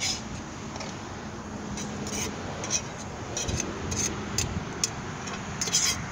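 A fork scraping and clinking against a small metal camp pan, in a series of short irregular clicks, as cooked fish is scooped out onto a tortilla.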